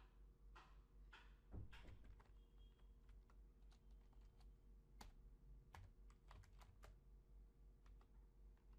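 Faint typing on a computer keyboard: scattered, irregular keystrokes, with a slightly heavier knock about one and a half seconds in, over a steady low hum.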